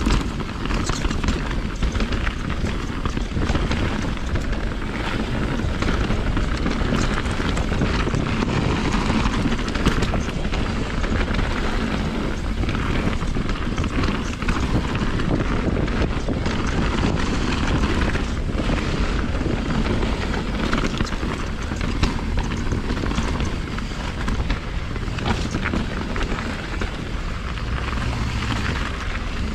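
2020 Rocky Mountain Instinct BC mountain bike descending a wet dirt trail: steady rush of wind on the microphone and tyre noise, with frequent small clicks and knocks from the bike rattling over the ground.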